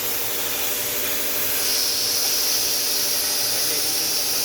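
CNC plasma cutting torch cutting, with a steady hiss that turns brighter about a second and a half in.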